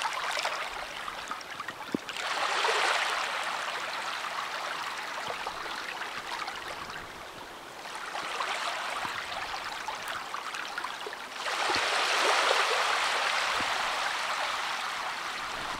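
Small sea waves breaking and washing over shallow water, a steady splashing hiss that swells as a wave breaks about two seconds in and again, for longer, from about eleven seconds in.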